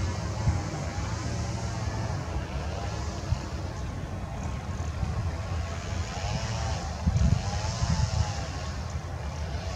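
Distant Airbus A320-family jet engines running on the runway, a steady rumble with a hiss above it, with wind gusting on the microphone.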